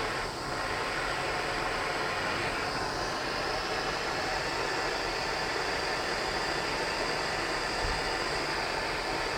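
Gas torch flame hissing steadily while heating a brass joint to melt and flow solder.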